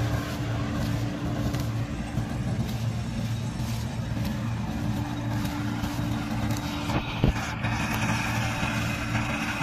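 A diesel tractor engine runs steadily under load, driving a straw reaper that is chopping wheat straw, with a steady mechanical hum. One sharp knock comes about seven seconds in.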